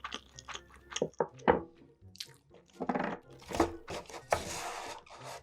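Close-miked eating: crunchy bites and chewing, with a few louder crackly crunches about a second and a half in and a short noisy stretch of about a second near the end.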